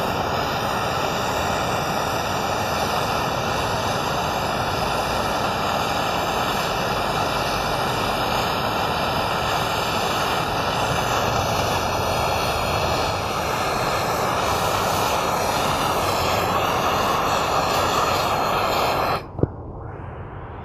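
Blow torch flame hissing steadily while it burns oil and carbon out of a clogged two-stroke spark arrestor screen. It stops suddenly near the end, with a single click.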